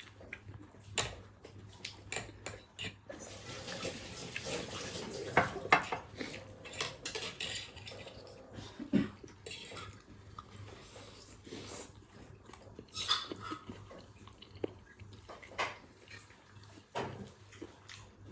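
Cutlery clicking and tapping against plates and bowls at an irregular pace while food is eaten.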